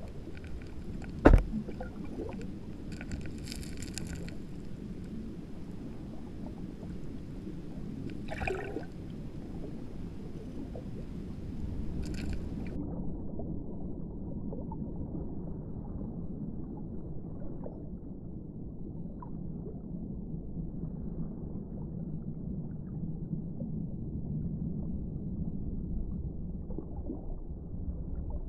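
Muffled, low rumbling water noise, like an underwater or aquarium recording, with one sharp click about a second in and a few brief hissy bursts early on; about halfway through the higher sounds cut out and it turns duller.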